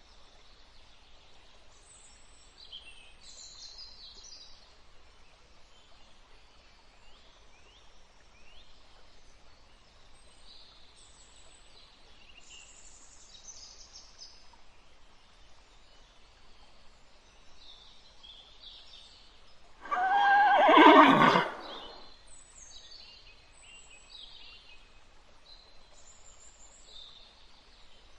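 A horse whinnies once, loudly, about two-thirds of the way through; the call lasts about a second and a half and its pitch wavers. Faint high bird chirps sound on and off around it.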